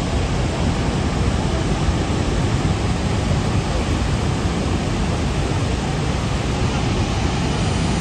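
Roar of Niagara Falls' water pouring down: a steady, loud rushing noise with a heavy low rumble.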